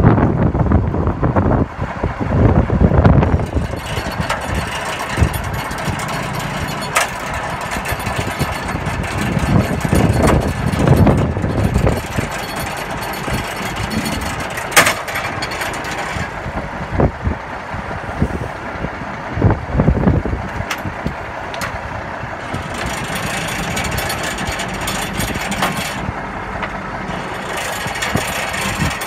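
Heavy trucks' engines running steadily during a tow recovery, louder and deeper in the first few seconds, with a few short sharp clicks.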